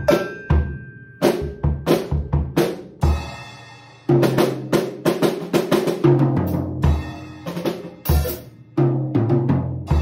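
Freshly tuned Yamaha birch drum kit played with sticks: a pattern of kick and snare strokes, the drums ringing out in a short gap about three seconds in, then a busy run of fills around the kit.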